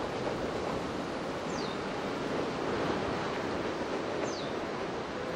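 Steady, deep rushing roar of a Kīlauea rift-zone fissure eruption, lava fountaining from the vent. Two short, high chirps that fall in pitch stand out above it, about a second and a half in and again near the end.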